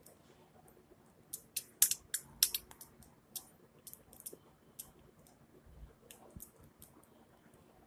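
Budgerigar in a sneezing fit: short, sharp, high sneezes, with a quick cluster of loud ones about a second and a half in and scattered fainter ones after.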